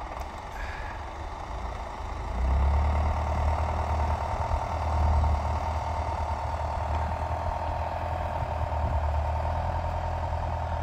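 Engines of a Tucker Sno-Cat and a stuck Jeep working under load while the Sno-Cat tows the Jeep out of deep snow on a strap. A deep, steady engine note comes up sharply about two seconds in and holds, with a steady mid-pitched whine running over it.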